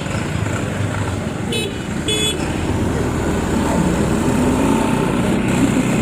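Vehicle engine running on the move with road noise, and two short high toots about a second and a half and two seconds in.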